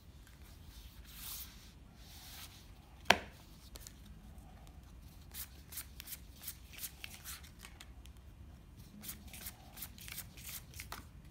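Playing cards being dealt one at a time onto a felt table: a run of quick flicks and light slaps as each card leaves the deck and lands, with one sharp click about three seconds in.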